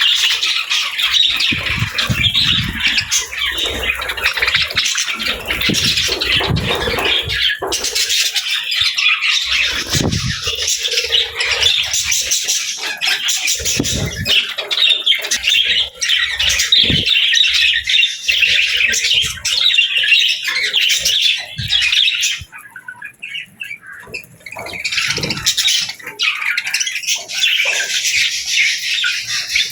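Budgerigars chattering and chirping nonstop, many short calls overlapping, with a brief lull about three quarters of the way through.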